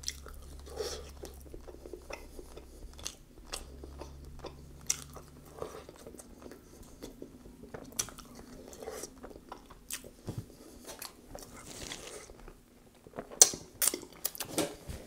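A person chewing pulled rotisserie chicken dipped in barbecue sauce: soft wet mouth clicks and smacks throughout, with a few louder smacks near the end.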